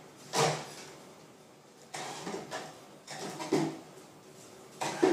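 A wooden chair creaking and knocking under a man's weight as he does triceps dips off its seat edge. There are several short, sudden creaks and bumps, a second or so apart.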